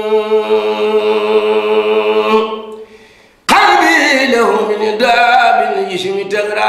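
A man chanting an Arabic devotional poem unaccompanied, holding one long steady note that fades out about two and a half seconds in. After a brief gap a new phrase starts abruptly, its pitch gliding down.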